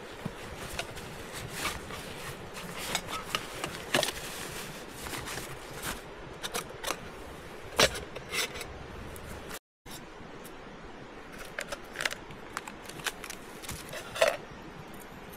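Camping cookware being unpacked by hand: a metal mug and its lid clinking and scraping, with the rustle of a nylon stuff sack, in scattered clicks and scrapes. The audio drops out completely for a moment just before ten seconds in.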